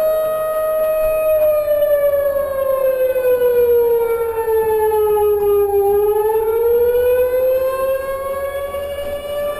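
Homemade tornado siren: a recorded civil-defense siren wail played from an iPod through a small radio speaker in a tin-can horn, loud. The wail holds steady, slides down in pitch from about a second in to around six seconds, then climbs back up.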